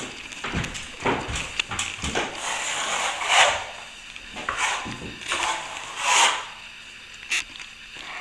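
Plastering trowel scraping across setting plaster in repeated strokes, about one a second, as the patch over the crack is worked toward a smooth finish while the plaster is still a little soft.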